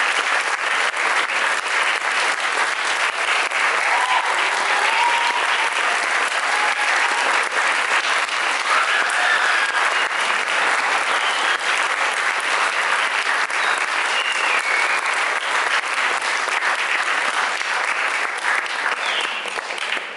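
Audience applauding in a concert hall at the end of a wind ensemble piece: dense, steady clapping that tails off near the end.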